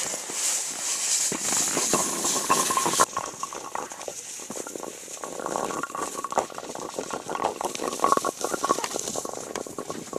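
Scraping and crackling of children sliding down an icy slope on a seat, with a loud hiss over the first three seconds that stops abruptly.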